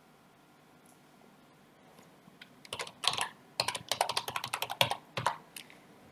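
Typing on a computer keyboard: a quick run of keystrokes starts about halfway through and stops shortly before the end.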